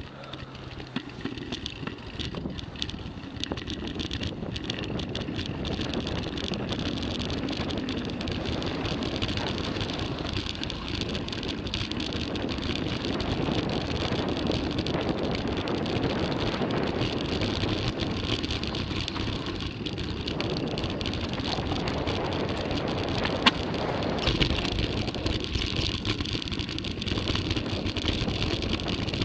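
Mountain bike running down a dirt downhill trail: tyres rolling over dirt and stones while the bike rattles with many small clicks. The sound grows louder over the first few seconds as speed builds, and there is a single sharp knock a little past twenty seconds in.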